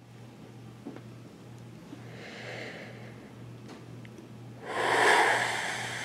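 A person breathing: a soft breath in about two seconds in, then a strong, breathy exhale that starts suddenly near the end and slowly fades.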